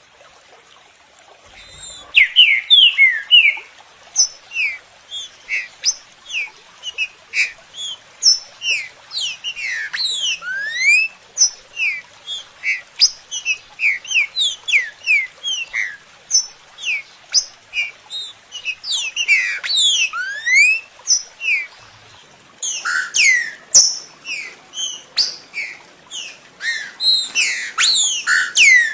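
Trinca-ferro (saltator) song from a stimulator recording: a rapid, continuous run of short whistled notes and quick up- and down-sweeping phrases, starting about two seconds in, with denser overlapping bursts of notes at times.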